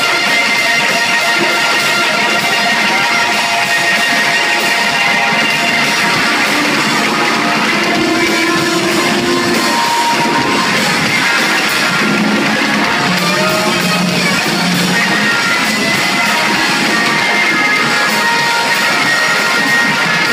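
Rock band playing live: electric guitars and drums at full volume, loud and steady throughout, heard from within the crowd.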